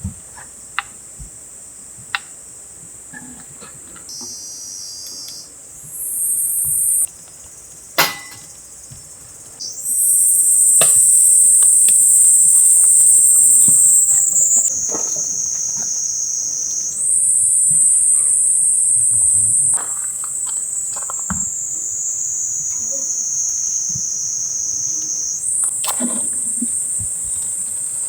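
High-pitched summer insect chorus, a steady shrill buzz that jumps in pitch and loudness several times, with a few scattered clicks and one sharp knock about a third of the way through.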